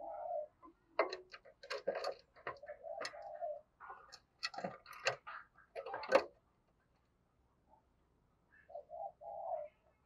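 Spotted dove giving short low coos at the start, about three seconds in and near the end. Between them the caged dove clatters about: a quick run of knocks and wing flaps against the bamboo cage from about one to six seconds in, the loudest about six seconds in.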